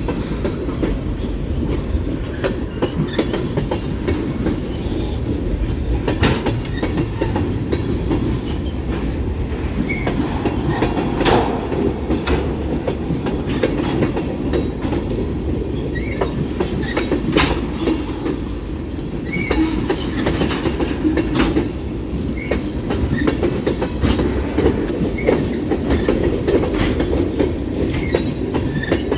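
Union Pacific mixed freight train rolling past: a steady rumble of the freight cars with irregular clickety-clack of wheels over the rail joints.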